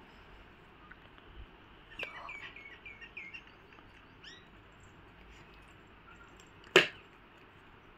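A bird chirps a quick run of short notes about two seconds in, with one more rising call a moment later. Near the end comes a single sharp click from the plastic eraser case being handled.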